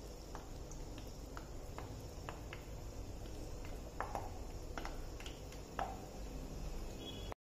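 Gram-flour-battered bread piece frying in hot oil: a low sizzle with scattered small pops and crackles, which cuts out abruptly near the end.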